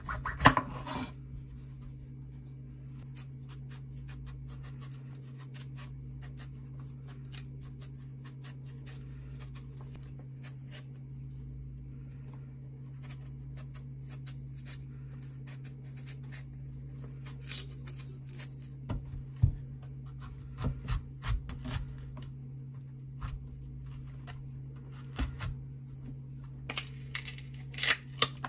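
Small knife peeling a ripe peach by hand, the blade scraping through the skin in many short, faint strokes over a steady low hum. Near the end, kitchen scissors snip into the fruit with a few louder clicks.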